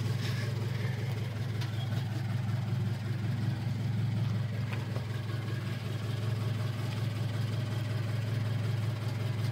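A Scion FR-S's flat-four engine idling steadily.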